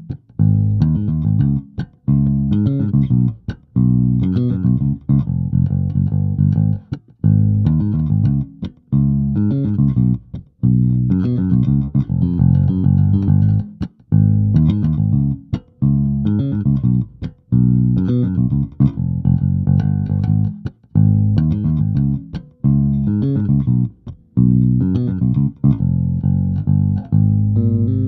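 Electric bass played through a Zoom B1X Four multi-effects processor on its "AG750 Set" patch. It plays a riff of plucked notes in repeated phrases, each phrase broken by a short gap, and ends on a note left ringing.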